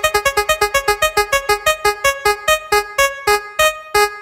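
Spinning prize-wheel tick sound effect: short electronic keyboard notes, one for each segment passing the pointer, slowing from about seven a second to about three a second as the wheel comes to rest.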